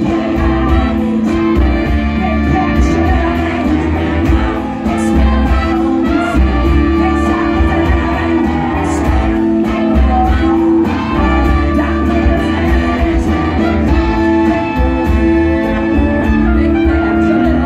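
Live brass hop band playing: horns, saxophones and sousaphone holding low notes over guitar and a steady drum beat.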